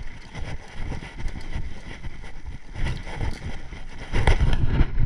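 Wind buffeting the microphone of a camera on a moving mountain bike, with the bike knocking and rattling over rough off-road trail; it gets louder about four seconds in.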